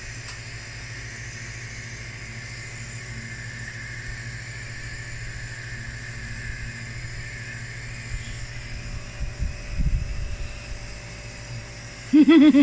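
Nebulizer compressor running with a steady hum and a hiss of air and mist through the mask, during a child's cough treatment. A few low bumps about nine seconds in, and a voice starts just before the end.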